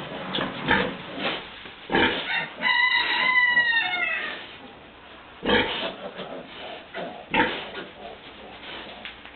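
Piglets and a sow grunting in short, separate grunts, with one high, drawn-out piglet squeal about three seconds in that dips in pitch as it ends.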